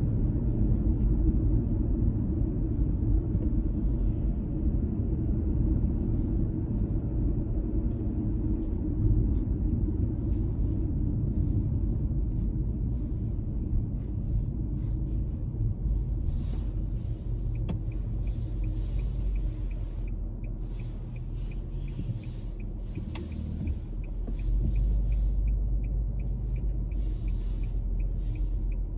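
Car driving along a road: a steady low rumble of tyre and engine noise.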